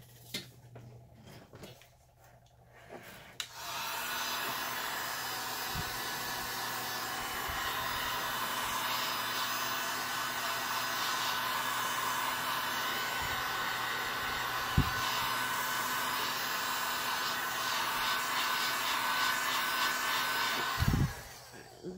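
Heat gun blowing steadily over a freshly epoxied tumbler to warm the coat so the acrylic colours blend, switched on about three and a half seconds in and off about a second before the end. A single short knock sounds about midway.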